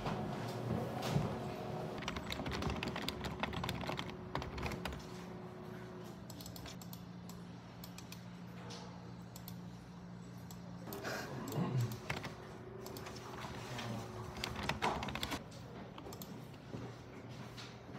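Typing on a computer keyboard: irregular runs of quick key clicks, over a faint steady low hum.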